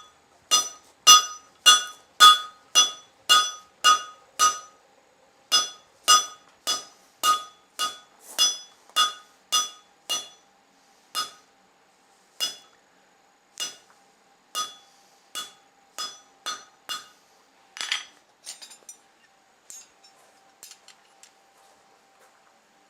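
A forging hammer striking a hot steel bar on an anvil's cut-off hardy to cut off its end, each blow ringing the anvil, about two blows a second. After about ten seconds the blows become sparser and softer, then a duller knock and a few light clinks near the end as the piece comes away. A faint steady hum runs underneath.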